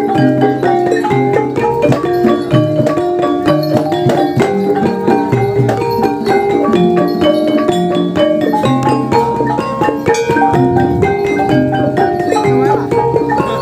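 Javanese gamelan music for a jaranan (kuda lumping) dance: quick interlocking mallet-struck melodies over a steady beat, playing continuously.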